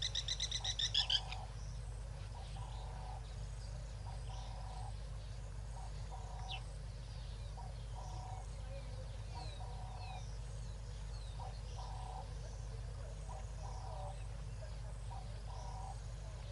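Frogs calling in a regular series of short croaks about once a second, over a steady low rumble, with a few faint high bird chirps. It opens with a loud burst of rapid high-pitched notes that lasts just over a second.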